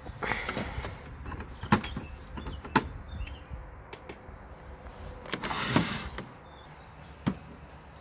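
Toy Miele dishwasher being handled: its plastic door is swung shut, giving sharp plastic clicks about two and three seconds in, with rustling handling noise around it. Another click comes near the end.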